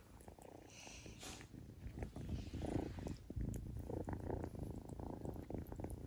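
Young flame point Siamese kitten purring steadily.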